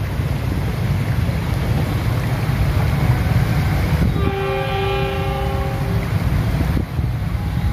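Train horn sounding one long blast of several notes together, starting about four seconds in and lasting nearly two seconds: the warning of a train approaching the level crossing. It sounds over a steady low rumble.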